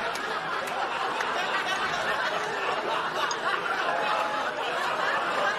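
Studio audience laughing steadily, a continuous crowd laugh without a break.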